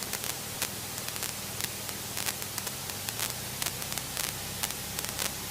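Small piston aircraft engine running at taxi idle, heard as a low steady hum under a steady hiss, with faint irregular clicks.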